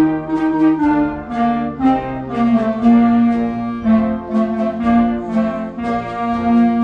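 A student clarinet ensemble playing a tune together, moving through notes several times a second. Near the end it settles on a longer held note.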